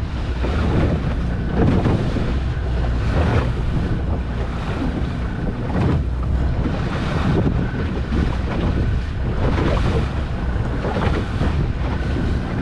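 Wind buffeting the microphone and water rushing and splashing past the hull of a motorboat under way, swelling irregularly every second or two.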